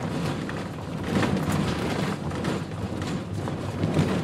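Cabin noise of a vehicle driving over a rough, overgrown dirt track: an uneven rumble with scattered knocks and rattles.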